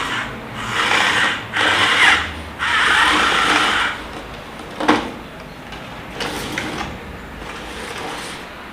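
Small electric gear motors of a remote-control toy JCB digger whirring in several short bursts, each lasting up to about a second, with a sharp click about five seconds in.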